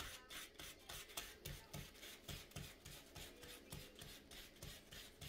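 Fine 1500-grit sandpaper rubbed back and forth over a stripped wire end in faint, even strokes, about three a second, scrubbing the blackened, oxidised copper back to clean copper before soldering.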